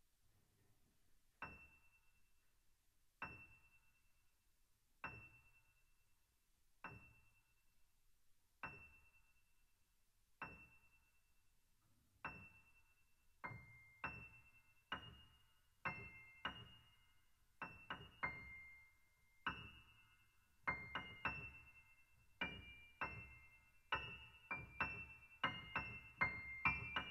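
Grand piano playing quiet, single high notes, one about every two seconds, each left to ring out. About halfway through a second, slightly lower high note joins, and the notes come faster and closer together toward the end.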